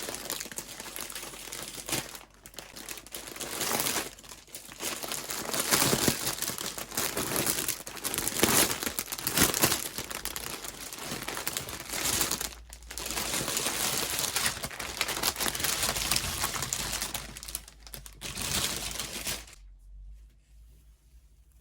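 Packaging crinkling and tearing as an item is unwrapped by hand, in uneven bursts with brief pauses, stopping near the end.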